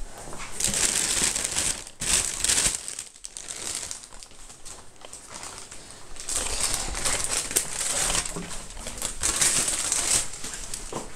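Plastic bag crinkling and rustling in several bursts, the busiest stretch coming in the second half.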